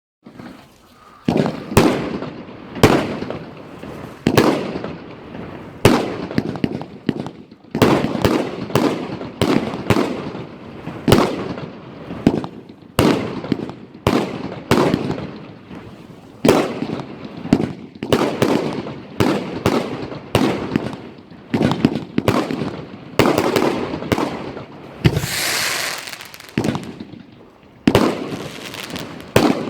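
Evolution Fireworks 'Spectacle Show 100' compound box firing off a rapid run of shots, about one or two sharp bangs a second, each trailing into the rumble and crackle of its burst. Near the end the bangs give way for a couple of seconds to a hissing crackle before the shots resume.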